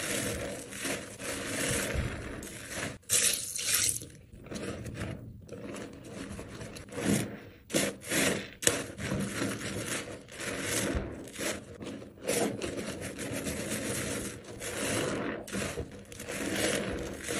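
Hands squeezing and rubbing a sponge loaded with soaked, mushy soap and thick lather: irregular wet squishing and scraping, with a few sharper, louder squishes around the middle.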